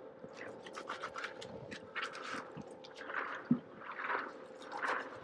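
Fillet knife slicing through a large snapper's flesh and skin on a cooler lid: wet, squishy cutting strokes, about four, with light ticks and one soft knock partway through.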